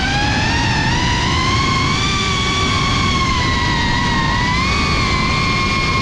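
FPV quadcopter's electric motors and propellers whining steadily, the pitch drifting gently up and down as it flies, over a constant low rumble, as heard on the drone's onboard camera.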